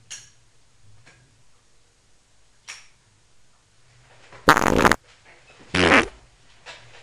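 Two loud fart sounds, the first about half a second long at around four and a half seconds in, a shorter one about a second later. Faint clicks of a lighter being flicked come before them.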